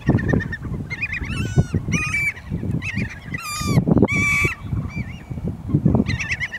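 Black skimmers calling: a series of short, harsh, pitched calls, some in quick runs, with a pause near the end of the calling before a last burst. A low, uneven rumble of wind or water noise runs beneath.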